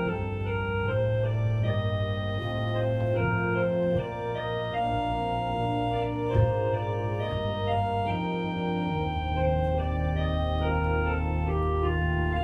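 Organ playing slow, sustained chords over held bass notes, the harmony changing every second or two. A single brief click sounds near the middle.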